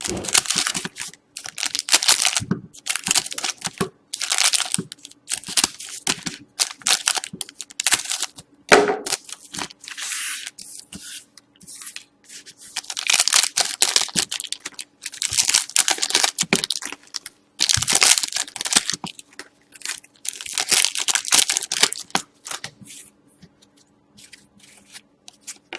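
Hockey card packs being torn open and their wrappers crinkled and handled: runs of sharp tearing and rustling, with a few short pauses between packs.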